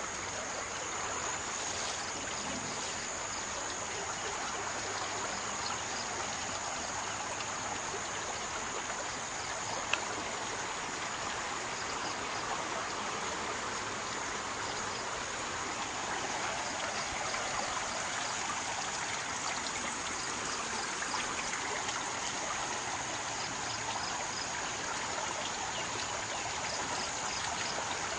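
Floodwater of a swollen river rushing past in a steady, even wash of noise.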